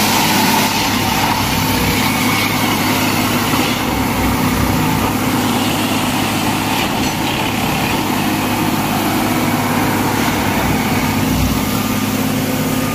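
Railway ballast tamping machine (sleeper packing machine) running, its engine giving a loud, steady drone.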